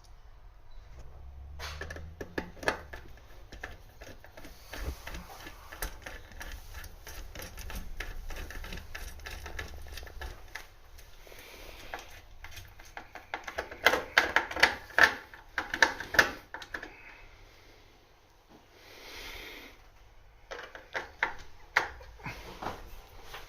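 Irregular clatter and knocking of hard objects being handled, with quick runs of clicks that are densest and loudest about fourteen to sixteen seconds in, then a short lull before more knocks.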